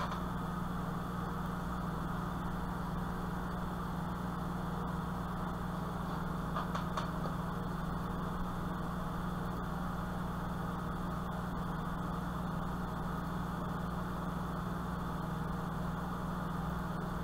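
A steady low hum with a faint hiss over it, unchanging, and a few faint ticks about seven seconds in.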